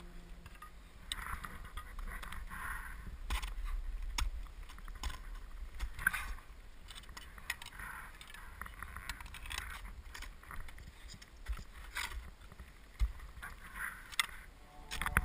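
Crampons and an ice axe scraping and clicking against icy rock in irregular strokes, over a low rumble of wind on the microphone.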